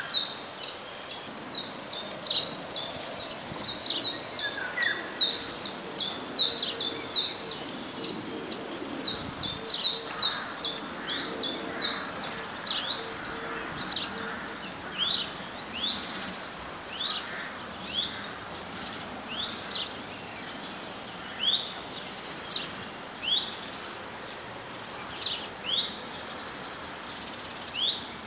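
Small songbirds chirping: many short, quick chirps, thick at first and then thinning to about one a second, over a steady faint outdoor hiss.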